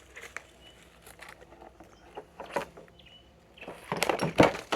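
Scattered rustles, scrapes and knocks as someone moves about a rusted car wreck, with a run of louder knocks near the end.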